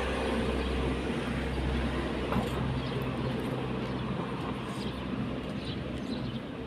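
Low, steady rumble of a motor vehicle's engine running close by, slowly fading toward the end.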